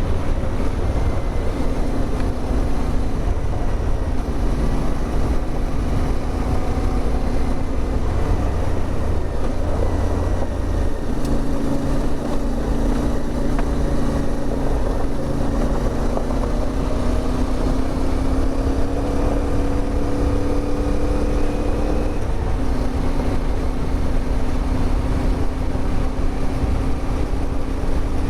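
CFMOTO 450MT's parallel-twin engine running at a steady cruise under a rush of wind noise. The engine note changes pitch a couple of times, near the middle and about two-thirds through.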